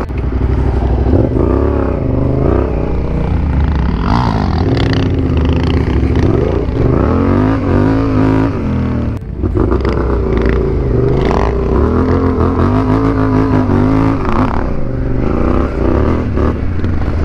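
Yamaha Ténéré 700's parallel-twin engine running under load off-road, its pitch rising and falling again and again as the throttle opens and closes, with a brief drop about nine seconds in.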